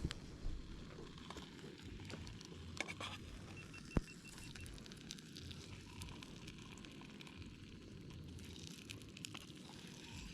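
Fish cooking on a portable fuel camp stove: a soft steady sizzle and crackle with scattered small clicks, and one sharp click about four seconds in.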